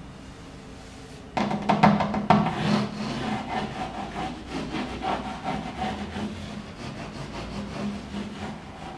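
A hand rubbing over textured woven glass-fibre wall covering, skin rasping on the weave in quick repeated strokes that start about a second and a half in.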